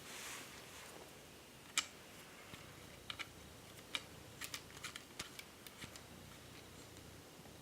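Antennas being screwed by hand onto a wireless PCI card's threaded connectors: a brief soft rustle, then scattered light clicks and ticks, the sharpest about two seconds in and a quick run of them around the middle.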